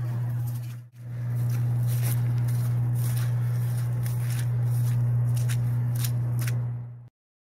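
Steady low hum of a power plant, under crackly rustling of footsteps through grass and phone handling. The sound drops out briefly about a second in and cuts off abruptly near the end.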